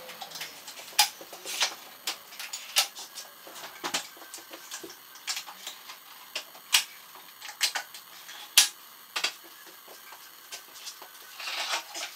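Irregular clicks and clacks of a Metabo TS 254 table saw's folding stand as its metal legs are swung out and locked, with a longer scraping rub near the end as the saw is tipped up onto its legs.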